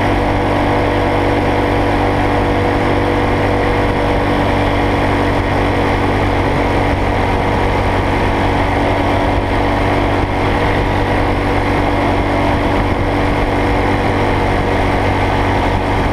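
A go-kart's small single-cylinder engine running loud and steady at a constant speed, with no revving up or down.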